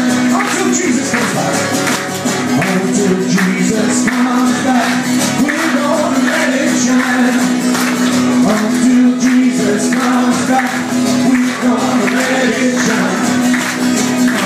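Live worship song: a man singing into a microphone and strumming an acoustic guitar over a PA, with a steady percussive beat and a held low note underneath.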